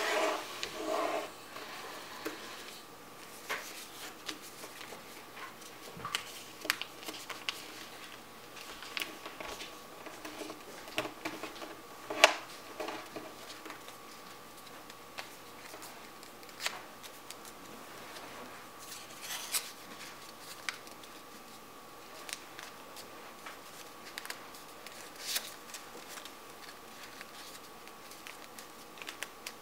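Coloured paper being folded and creased by hand: scattered crinkles and rustles with sharp snaps of the crease, the loudest about twelve seconds in, over a faint steady hum.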